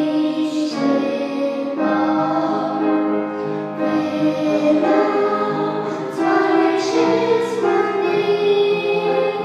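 Children singing into handheld microphones, holding long notes that change about once a second.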